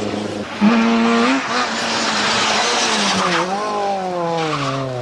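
Rally car engines at high revs on a stage. About half a second in a loud engine note cuts in and climbs in pitch, and over the last second and a half the pitch falls steadily as a car goes by and backs off.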